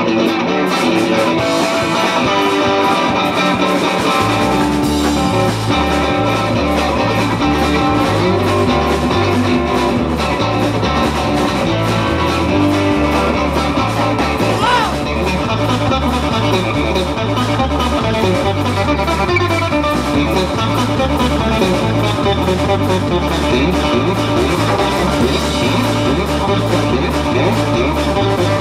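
Live rock band playing: electric guitars over a drum kit, with a pulsing bass line coming in about four seconds in.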